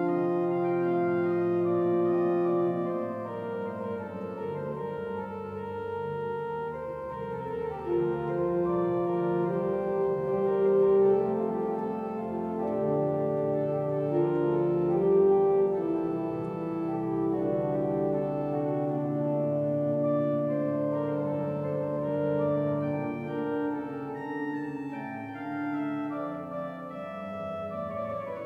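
Church pipe organ playing slow, held chords, the notes and harmonies shifting every second or two.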